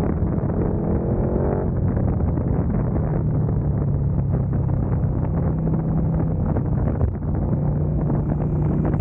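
KTM motorcycle engine running in third gear at road speed, with wind rushing over the microphone; a rising engine note in the first couple of seconds, then a steadier drone as the bike slows into a bend.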